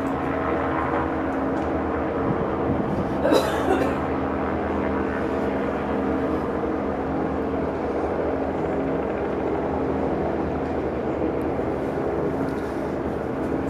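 A steady engine drone holding several pitches at once, with a brief louder noise about three seconds in.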